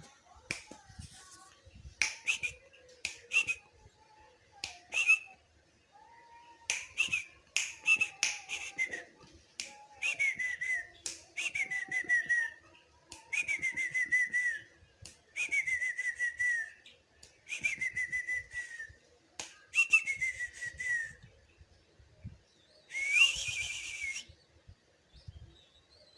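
Pet songbird giving a run of whistled calls, each a short note that slides down and settles, about one every second and a half, with sharp clicks in between and one louder, harsher call near the end.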